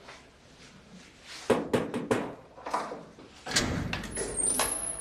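Footsteps on a hard floor, then a heavy door being opened with a long rough scrape and a short high squeak near the end.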